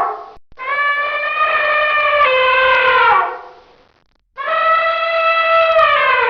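Elephant trumpeting: two long, loud horn-like calls, each dropping in pitch as it fades out, after the tail end of an earlier call.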